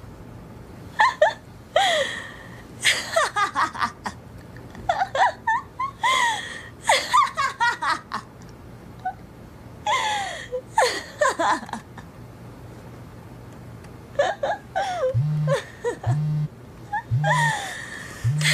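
Bursts of high-pitched human laughter, coming in short fits every second or two. A low pulsing beat, about once a second, sets in near the end.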